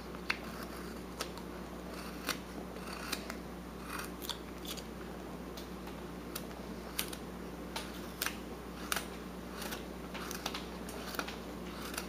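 Carving knife slicing chips from a block of wood by hand: short, sharp clicks at an irregular pace of about one or two a second.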